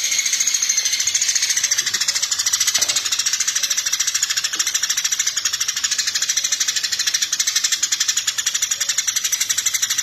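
Eurasian tree sparrow giving a rapid, unbroken chatter of high chirps, many to the second.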